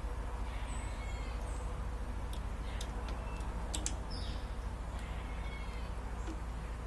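A few light clicks of small metal parts being handled while the garage door opener belt's master link is fitted, over a steady low hum. Faint chirping calls come and go in the background.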